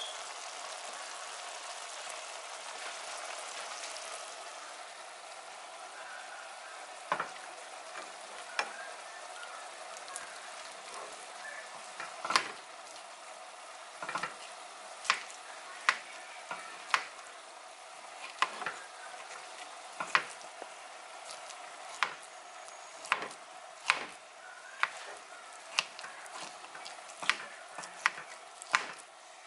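Food sizzling in a pan on a gas stove, with a metal utensil stirring grits and egg in a small stainless steel saucepan; from about seven seconds in, sharp clinks and scrapes of metal against the pan about once a second.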